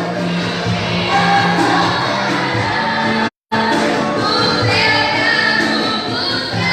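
Church worship music: singing over instrumental accompaniment with steady held low notes. The sound cuts out completely for a moment about halfway through, then resumes.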